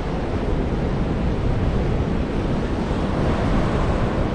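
Steady surf washing on a beach, with wind buffeting the microphone.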